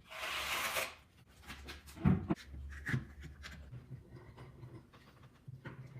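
Plywood being handled on a work surface: a short scraping rub at the start, then a few knocks and light rubbing and scraping.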